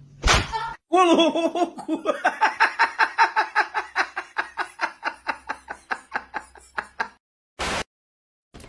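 A short loud burst, then a high-pitched cartoon laugh of rapid, evenly spaced 'ha' pulses, about five a second, running for about six seconds; a brief burst of static near the end.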